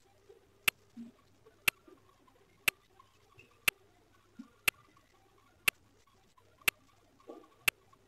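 Clock-style ticking, one sharp tick each second, keeping time as the phone boots, with a few faint soft knocks underneath.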